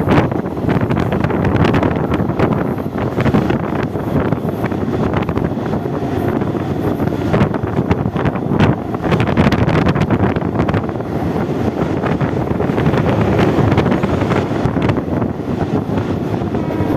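Western Railway EMU suburban train running at speed: a steady rumble with many sharp clicks, and heavy wind buffeting the microphone.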